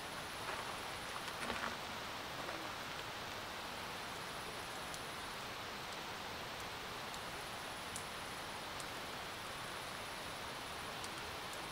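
Campfire burning with a steady hiss and a few faint sharp crackles; a high, thin trill comes and goes above it.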